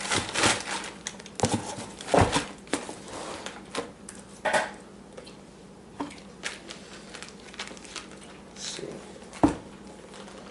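Packaging crinkling and rustling as a pair of sneakers is handled, with scattered light taps and two sharper knocks, one about two seconds in and one near the end.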